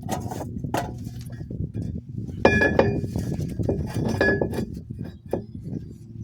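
Metal parts and tools clinking and knocking as they are handled, with two louder strikes that ring briefly, about halfway through and again a couple of seconds later.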